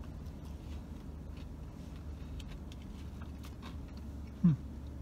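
A man chewing a thick oven-baked fry with faint, scattered wet clicks, over a steady low hum in a car cabin. About four and a half seconds in there is a brief hummed "mm".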